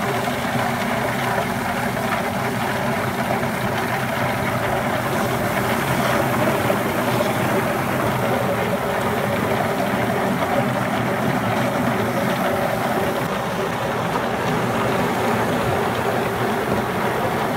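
Walnut hulling machine running with green walnuts churning in its drum under a water spray: a steady mechanical hum mixed with the noise of water and tumbling nuts.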